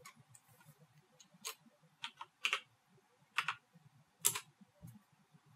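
A handful of separate computer keyboard keystrokes, entering a number into a field, each a short faint click about half a second to a second apart.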